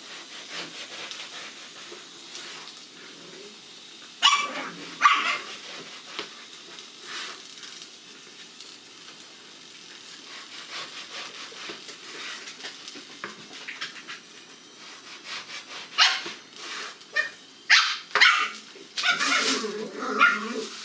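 Kitchen knife sawing through a white loaf on a plastic cutting board, a steady scraping of crust and crumb. A dog barks twice about four seconds in and several times near the end.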